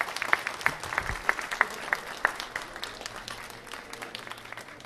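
Audience applauding at the end of a song, the clapping thinning out and fading toward the end.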